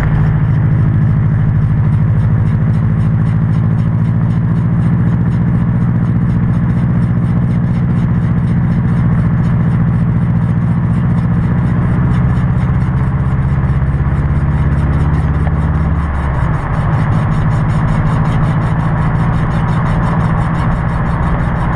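2006 Subaru WRX on the move, a steady low drone with a grinding, scraping noise from the front passenger-side wheel: a bad wheel bearing. About sixteen seconds in the low hum dips and drops in pitch.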